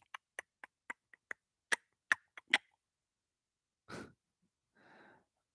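A string of about ten quick, sharp clicks over the first two and a half seconds, from typing or clicking at a computer picked up by a close headset microphone, then a short puff of noise about four seconds in.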